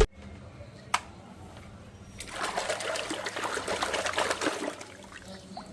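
A single sharp click about a second in, then a few seconds of water trickling and splashing, as when toys are washed by hand.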